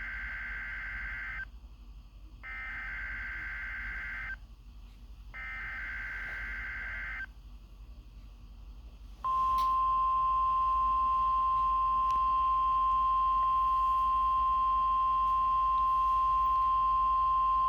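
NOAA Weather Radio emergency alert tones for a required weekly test: three Specific Area Message Encoding (SAME) data bursts, each a warbling two-pitch digital squeal about two seconds long with a second's gap between them. About nine seconds in, after a short pause, the steady single-pitch 1050 Hz weather radio alert tone starts and holds.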